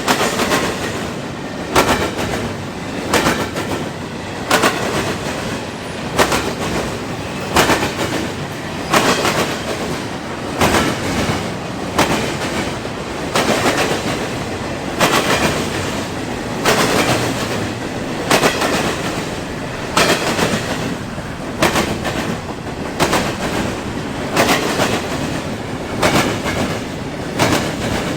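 Freight train cars rolling past, their wheels clicking over the rail joints in an even clickety-clack, a burst about every second and a half, over a steady rumble of the wheels on the rails.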